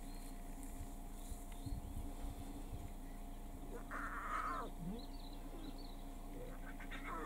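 Lion cubs calling: two mewing calls that fall steeply in pitch. The first comes about four seconds in and has a harsh, raspy start. The second comes near the end.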